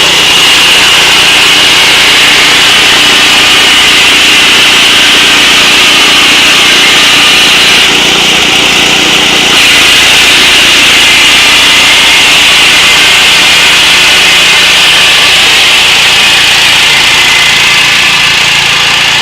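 4LZ-0.3 rice combine harvester running, a loud steady mechanical noise with a constant high whine over it.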